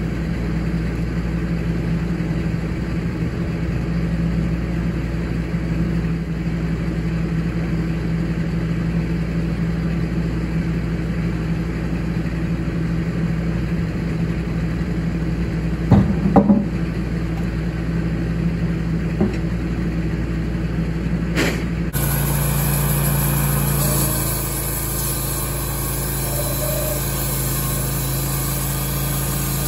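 Wood-Mizer LT15 portable band sawmill's engine running steadily, with a few sharp knocks about halfway through. Near the end the sound is closer and brighter as the band blade cuts through a cant, sawdust pouring from the chute.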